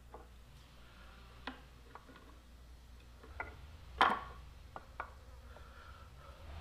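Scattered light clicks and taps of small metal parts being handled and set onto an aluminium 6.0 Powerstroke oil cooler housing, the loudest about four seconds in.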